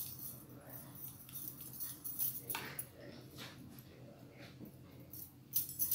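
A utensil scraping and clicking against a glass baking dish and a sauce bowl as a thick marinade is spread over a beef tenderloin, a few sharper clinks among soft smearing, over a low steady hum.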